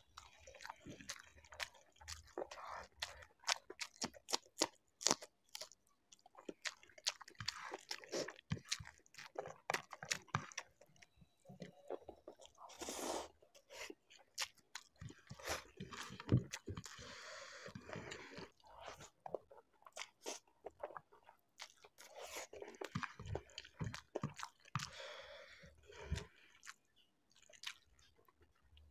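Close-miked eating sounds: chewing and mouth smacking of spicy Maggi instant noodles with corn kernels, with many sharp, irregular mouth clicks.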